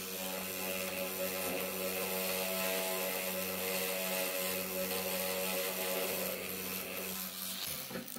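Rotary tool spinning a sanding wheel with a steady whine while a small silver wire collet is sanded against it to remove tool marks. The motor cuts out near the end.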